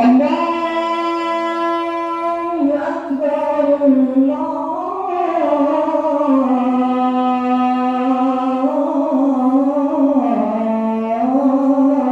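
Music: a voice singing a slow melody in long held notes that step and glide in pitch.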